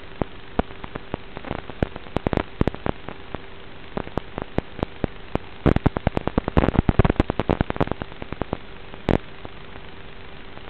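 Steady static hiss with a faint steady hum, broken by irregular crackles and pops that come thickest in the middle and end with one loud pop near the end: radio static on the audio channel of an analog FPV video link.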